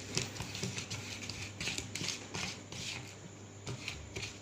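Sticky fishing-bait dough of egg yolk, honey, horse fat and condensed milk being stirred and worked, giving irregular wet squelching and scraping strokes about two or three a second. A steady low hum runs underneath.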